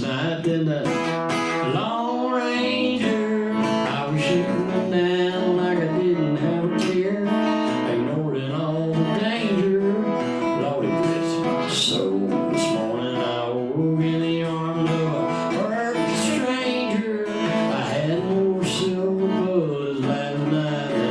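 Acoustic guitar playing a country song live, strummed with moving melody lines.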